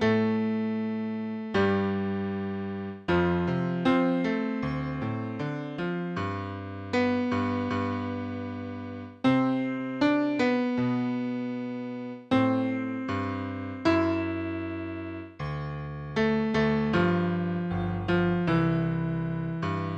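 Solo piano playing slow chords, each struck and left to ring and fade, with quicker runs of notes in between.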